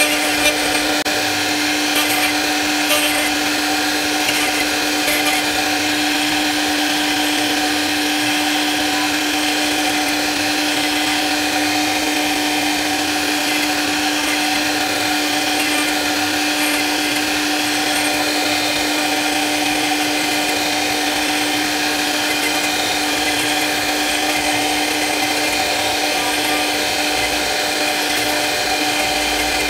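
CNC router spindle running with a small carving bit cutting a relief pattern into a wooden door panel: a steady whine with several high tones over the noise of the bit cutting the wood.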